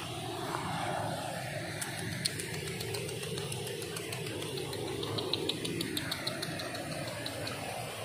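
Steady rushing of a small river, with a run of quick high clicks, about four a second, from about two seconds in until near the end.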